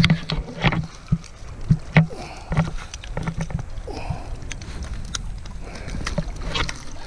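Water sloshing and splashing in irregular bursts, with scattered clicks and knocks over a steady low rumble.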